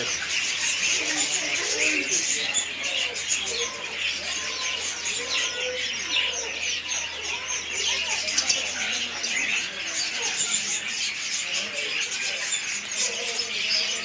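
Many caged small birds chirping at once: a dense, continuous chorus of overlapping chirps and peeps with no pauses.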